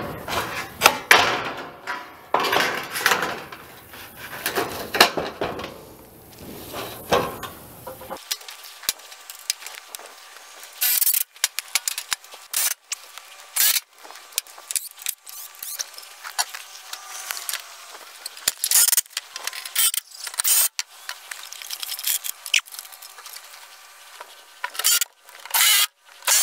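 Metal roofing panels being handled and set in place: irregular clanks, rattles and scrapes, with many short sharp knocks.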